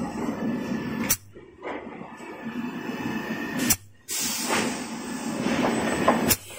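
Toilet paper embossing machine running: a steady mechanical noise with a low drone. Three sharp clicks, about two and a half seconds apart, each followed by a brief drop in the noise.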